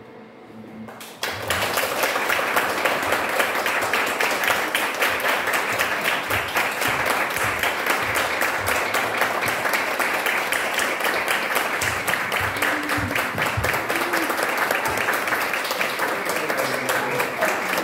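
A small audience applauding, the clapping starting suddenly about a second in and going on steadily, with a few voices calling out.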